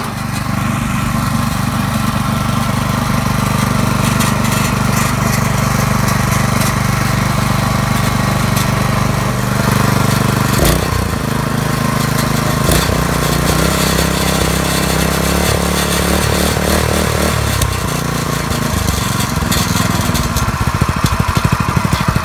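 Meister engine running steadily, its speed shifting up and down a few times partway through.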